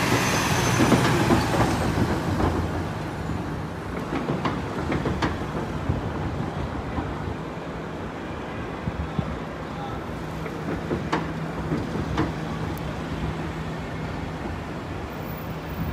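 City street traffic: cars and a flatbed truck moving past, a steady low engine hum with scattered clicks and rattles, loudest in the first couple of seconds.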